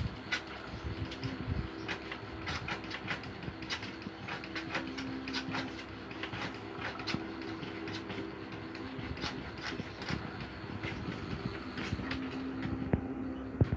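A cat pawing and clawing at a refrigerator door: irregular clicks, taps and light rattles, several a second, over a steady low hum.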